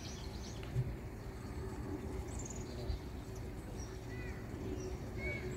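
Outdoor ambience: a steady low rumble with a faint hum, a few short bird chirps, and two soft thumps.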